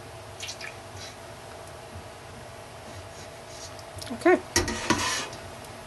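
The last of the lye solution faintly trickling and dripping from a glass measuring jug into a pot of oils. About four seconds in the glass jug is set down with a short squeak and a brief clatter.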